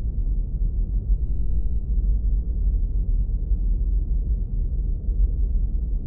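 Steady low rumbling noise, heavy in the deep bass and with nothing high up: a filtered white-noise sleep track.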